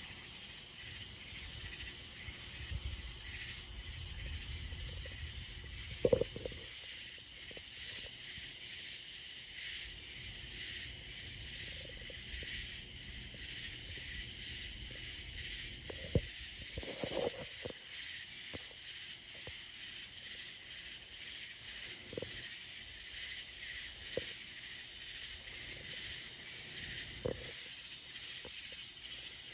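A steady night chorus of insects chirping in a fast, even pulse. A low rumble runs under it for the first six seconds, and a few short knocks stand out, the loudest about six and sixteen seconds in.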